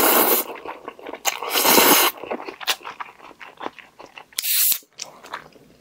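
A person slurping pasta noodles off chopsticks, two long slurps in the first two seconds, then chewing with small wet clicks and a short hiss near the end.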